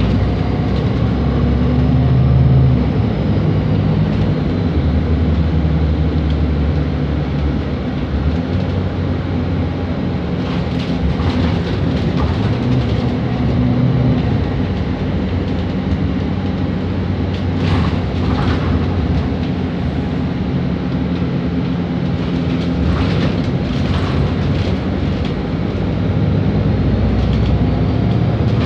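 Interior of a Volvo B7RLE city bus on the move: the rear-mounted six-cylinder diesel and drivetrain run steadily, the engine note shifting up and down several times as the bus drives. The cabin rattles and knocks in short spells, mostly around the middle and again near the end.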